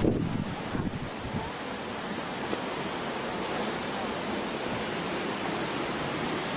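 Steady rushing roar of Yosemite Falls' water, with wind buffeting the microphone and a brief louder gust at the very start.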